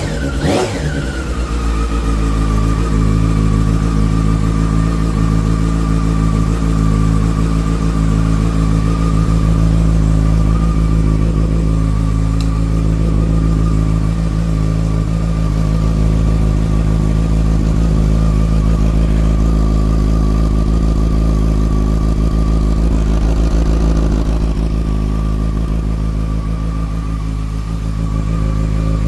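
Yamaha FZ6-N's 600 cc inline-four engine idling steadily, after a brief rev that falls quickly back to idle in the first second.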